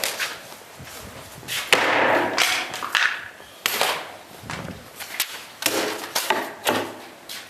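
A series of sharp chopping strikes from a heavy competition cutting knife hitting targets, about seven blows spaced irregularly half a second to a second apart.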